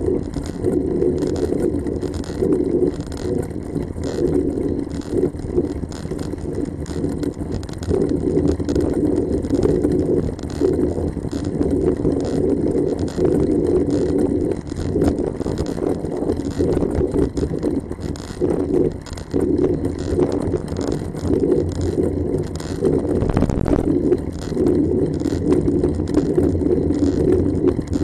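Wind buffeting a bicycle-mounted camera's microphone while riding a road bike, a loud, constantly fluttering rush mixed with road rumble. A brief thump about 23 seconds in.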